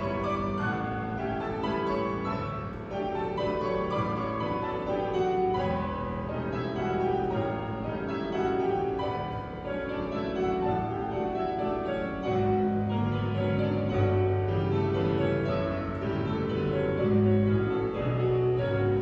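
Piano music accompanying a ballet barre exercise: a flowing melody in the middle range over sustained bass notes, steady throughout.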